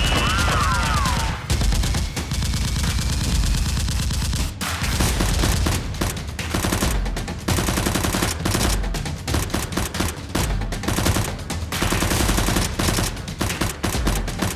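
Rapid, continuous bursts of automatic gunfire sound effects, one volley running into the next.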